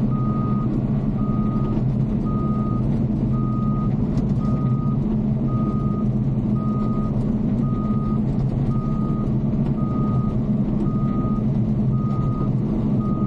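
Caterpillar D5 bulldozer's diesel engine running steadily while its reverse alarm beeps about once a second, the sign that the dozer is backing up.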